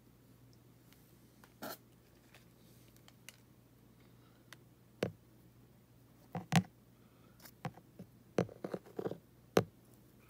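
Handling noise: scattered short clicks, taps and scratches, a couple early on and a denser cluster in the second half, the loudest about six and a half and nine and a half seconds in.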